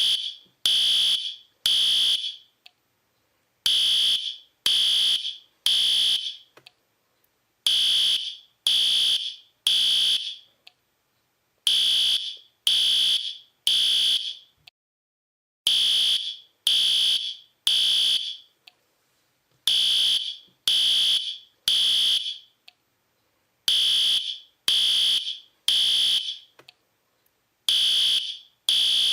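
Fire alarm sounding the temporal-three evacuation pattern: three high-pitched beeps about half a second long, then a pause of about a second and a half, the cycle repeating every four seconds. This three-beep pattern is the standard signal for fire and evacuation.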